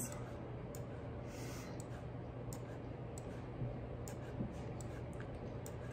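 Faint computer mouse clicks, several at irregular intervals, over a steady low hum.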